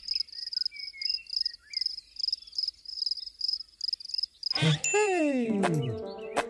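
Cartoon sound effect of crickets chirping, a high pulsing chirp about four times a second. Near the end it gives way to a falling sliding tone with a short ding.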